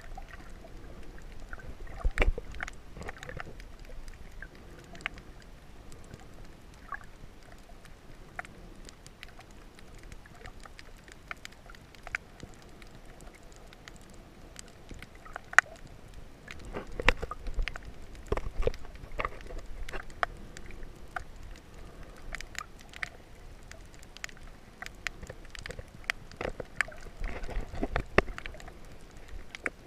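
Underwater sound picked up by a submerged camera in the shallow sea: a muffled wash of moving water with scattered sharp clicks and pops, and a few low thumping surges, about two seconds in, in the middle and near the end.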